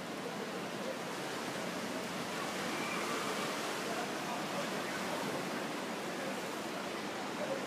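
Steady, even wash of distant surf.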